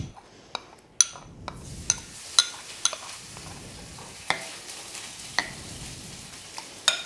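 A ceramic ladle clinking against a ceramic bowl as an iced coconut-milk dessert is stirred: several sharp, separate clinks over a steady, crackly hiss.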